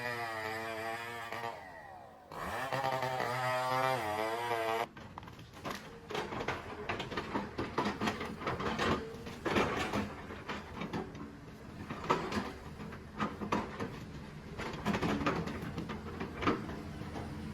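A wavering droning tone for about five seconds, then an abrupt change to heavy diesel machinery working logs: a steady engine hum with frequent irregular clanks and knocks.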